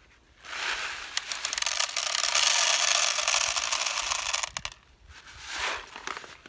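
A paper seed packet being handled close by, crinkling and rustling for about four seconds before it stops abruptly, followed by a shorter, fainter rustle near the end.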